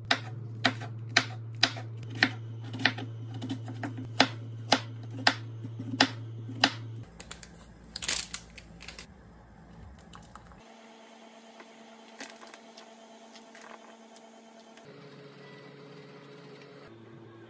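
Kitchen knife chopping a green onion on a wooden cutting board: sharp, even knocks about two a second over a low steady hum, stopping about seven seconds in. A brief noisy burst follows about a second later, then only quiet kitchen background.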